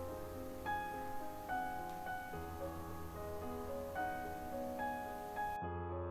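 Soft background music: a slow keyboard melody, with a new note about once a second over a steady low note.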